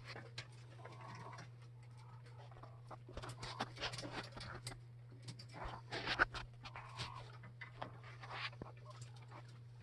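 Young Jumbo Wild coturnix quail shuffling and pecking on a wire-mesh cage floor: an irregular patter of light clicks and taps, in two busier bursts, with a couple of faint short calls, over a steady low hum.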